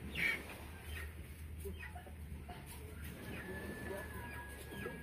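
Birds calling in short, scattered notes, with one thin held note in the second half, over a steady low rumble.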